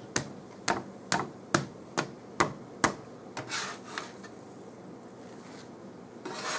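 A plastic spatula tapping against an electric griddle and the toast on it: seven sharp clicks, evenly spaced about twice a second. Then come a few softer scraping swishes as the spatula slides and shifts the grilled cheese sandwiches.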